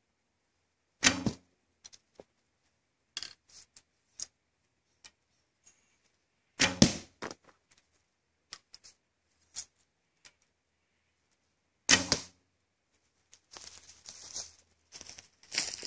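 A 55-lb Greatree Highlander recurve bow shooting three arrows, about five seconds apart, each a sharp thump of the released string. Near the end, footsteps rustle through dry leaf litter.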